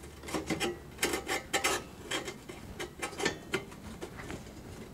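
Ceramic thermocouple block being worked loose from a tight fit in a kiln's sheet-metal mounting box, with irregular scraping and clicking against the metal.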